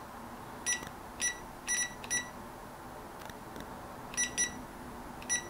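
WALAPress clamshell heat press's digital control panel beeping at each button press as the temperature setting is stepped down: about seven short, high-pitched beeps at irregular intervals, two of them in quick succession around four seconds in.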